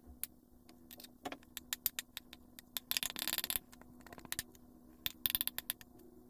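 A spatula scraping thick batter out of a glass mixing bowl into a metal tube pan: scattered light clicks and taps, with two longer scraping bursts about three and five seconds in.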